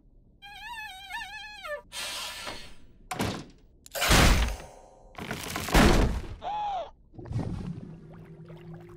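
Cartoon sound effects: a wavering high tone, then rushing noises and two heavy thuds as a small wooden shop is knocked down, ending in a low steady hum.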